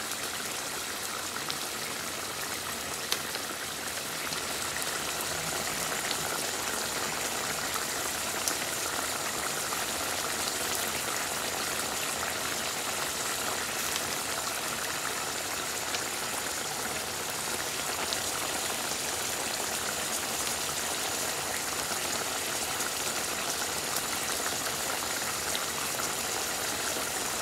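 Chicken curry boiling hard in a nonstick wok: a steady bubbling hiss with a few faint pops. The tough desi chicken is being boiled in added water to soften it over a long cook.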